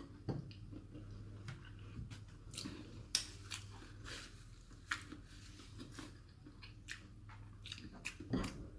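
A person chewing food, with irregular mouth smacks and clicks.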